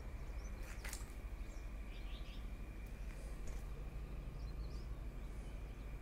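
Quiet outdoor ambience: a steady low rumble with a faint steady high whine, and a few short, high bird chirps in the middle.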